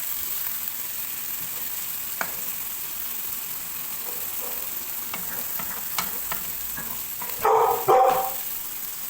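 Chicken and egg frying in hot oil in a wok with a steady sizzle, and a spatula clicking and scraping against the pan as it is stirred. About a second before the end, two short, loud calls cut over the frying.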